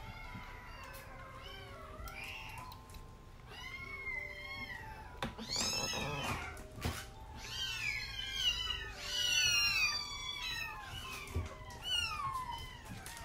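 Young kittens mewing over and over in thin, high cries, several following close together through the middle. Faint background music notes sound underneath.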